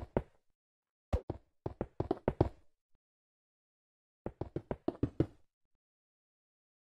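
Rapid knocking in short runs, several knocks a second, with silent gaps between the runs.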